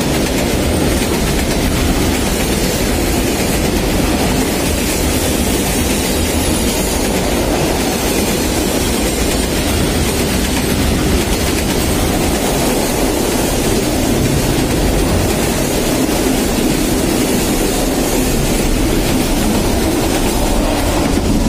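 Freight train wagons rolling past at close range: a loud, steady rumble of steel wheels on the rails from covered wagons and container flatcars.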